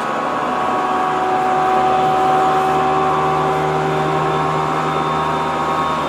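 Tokyo Metro 07 series train heard from inside the car while running: a steady rumble of wheels on rail with the VVVF inverter-driven traction motors' whine held at an even pitch.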